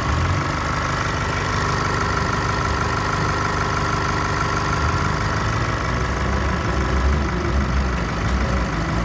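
Holden Colorado's 2.8-litre four-cylinder turbo-diesel idling steadily, being run to show that the used engine runs.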